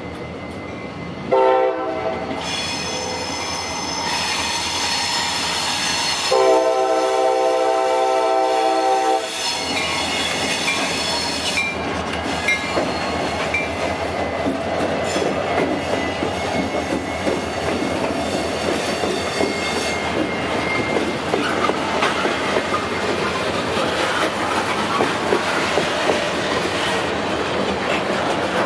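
EMD SD40-2 diesel locomotive sounding its air horn, a short blast about a second in and a longer one of about three seconds around six seconds in, then the locomotive and the freight cars rolling past with a steady rumble and clickety-clack of wheels over rail joints, with some wheel squeal.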